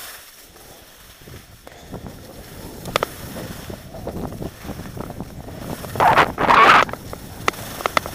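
Skis sliding and scraping over packed snow, with wind buffeting the microphone. A sharp click comes about three seconds in, and the loudest stretch of scraping and rushing comes about six seconds in.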